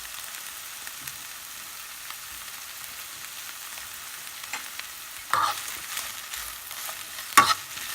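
Onion, smoked pancetta and green beans frying in sunflower oil in a pan, a steady sizzle. About five seconds in the sizzle briefly gets louder, and a single sharp knock comes near the end.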